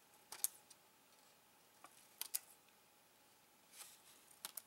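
Scissors cutting small pieces off a printed strip: three quiet snips about two seconds apart, each ending in a sharp click of the blades closing.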